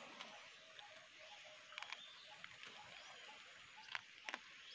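Near silence: faint outdoor ambience with a few soft ticks, the loudest about four seconds in.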